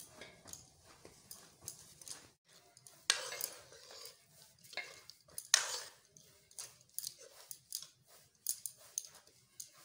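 Steel ladle stirring thick curry gravy in a metal kadhai, with repeated clinks and scrapes against the pan. There are two louder scrapes, about three seconds in and again about five and a half seconds in.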